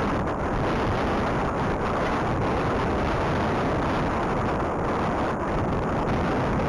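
Strong wind in a blizzard buffeting the camera microphone, a steady low rushing noise.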